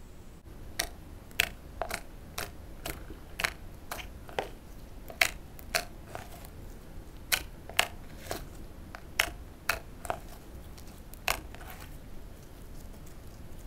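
Fingers pressing and squeezing thick pale yellow slime, giving sharp popping clicks about two a second, which stop shortly before the end as the slime is folded more quietly.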